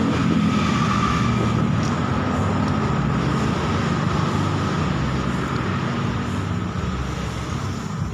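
An engine running steadily, with a faint steady whine above it, easing slightly in level toward the end.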